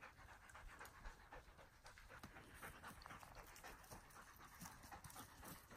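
Faint, quick panting of a Xarnego valenciano hunting hound.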